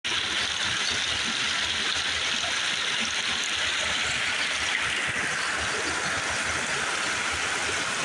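Rocky creek rushing over stones and small waterfalls: a steady, even rush of water.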